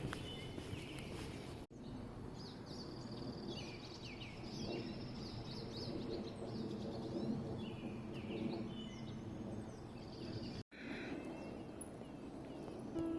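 Several birds chirping and trilling over a steady low background rumble of outdoor noise. The sound cuts out abruptly twice, about two seconds in and near the end.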